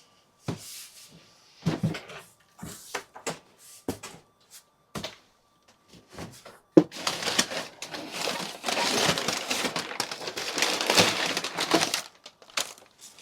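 Unpacking a cardboard shipping box: scattered knocks and rustles, then from about seven seconds in several seconds of continuous crinkling and crumpling of packing material.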